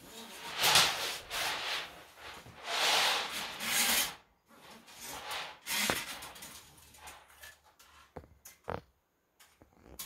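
Metal cable of a toilet auger being pulled up out of the toilet through a rag, making long rubbing swishes, then shorter scrapes and a couple of sharp knocks in the second half.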